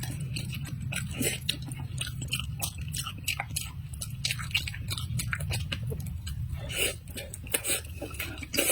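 Close-miked chewing and biting of stir-fried vegetables: a dense run of sharp, irregular mouth clicks and smacks, over a low steady hum.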